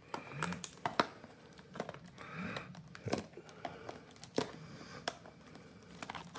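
Packaging of a Pokémon booster bundle being crinkled and torn open by hand, with scattered small clicks and taps.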